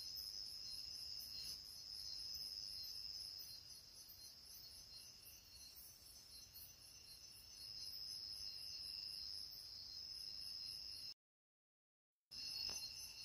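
Faint chorus of night insects: a steady high trill with a higher chirp pulsing about three times a second. It cuts out for about a second near the end, then resumes.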